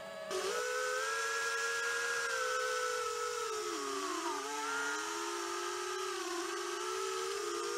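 Holybro Kopis Mini FPV quadcopter's motors and propellers whining in flight, several close tones sliding up and down together as the throttle changes, over a steady rush of prop wash and air.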